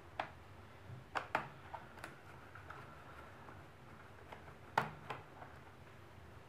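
Scattered small clicks and taps from a screwdriver working the hard-drive screws in an HP G62 laptop's plastic underside, and from fingers handling the screws. The sharpest click comes about five seconds in.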